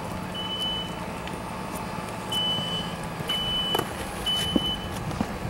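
A vehicle engine running steadily under a high electronic beep that repeats about once a second, in the manner of a reversing alarm, pausing briefly about a second in. A few faint knocks.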